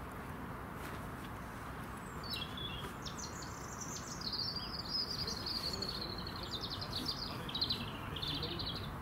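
A small songbird singing one long, varied song of high chirps and rapid trills, starting about two seconds in, over a steady background hiss.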